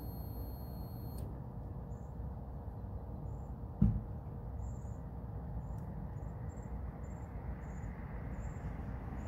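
A steady low background rumble with faint, irregular high chirps, broken by one sharp click about four seconds in.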